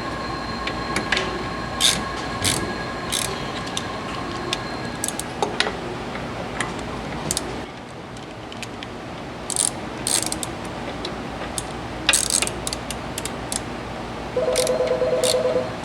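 Wrench clicking and metal-on-metal clanks as the cylinder nuts on a filling machine are tightened back up, in scattered, irregular strikes. Near the end a louder, rapidly pulsing tone starts.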